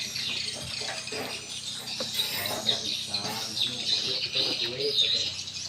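Many swiftlets twittering together: a dense, continuous chatter of short, high chirps overlapping one another.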